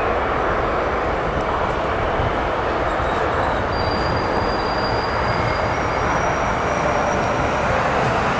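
JR West 521 series two-car electric train pulling out of a station: steady rumble of motors and wheels on the rails, with faint high whines joining in partway through.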